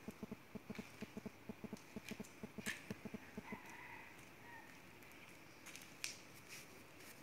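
A chicken clucking in a quick run of short, low clucks, about eight a second, which stops about three seconds in. A few faint short chirps follow.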